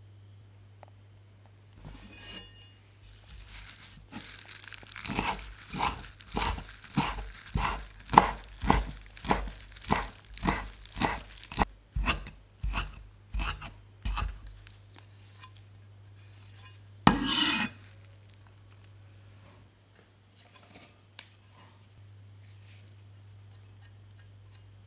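Kitchen knife chopping fresh parsley on a wooden cutting board, crisp, even strokes about two a second for about ten seconds. A few seconds after the chopping stops comes one short, louder rustling scrape.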